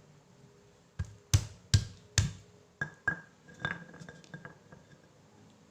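A pestle pounding spices in a covered mortar: about ten sharp, uneven strikes, each with a short ringing clink, starting about a second in and tapering off near the end.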